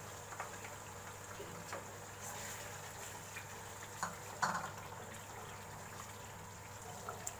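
Mutton karahi gravy simmering steadily in a stone-coated wok as cream is poured in, then a wooden spoon stirring it through, with a few light knocks and scrapes against the pan, the loudest about four seconds in.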